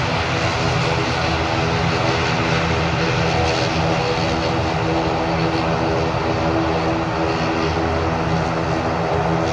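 Airliner engines running steadily at close range: an even, loud drone with a stack of steady hum tones over a rushing noise.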